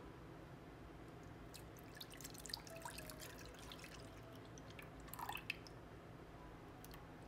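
Milk poured from a glass measuring jug into an empty nonstick saucepan: faint splashing and dripping, in a longer spell about two to three seconds in and a shorter one about five seconds in.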